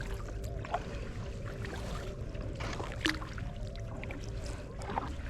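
Kayak paddling: the paddle dips and water splashes and drips in short, irregular clicks over a steady low rumble, with a faint steady hum underneath.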